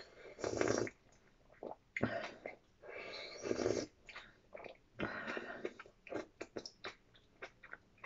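A person slurping from a soup bowl in four short noisy sips, about one and a half seconds apart, then chewing with quick small clicks and smacks.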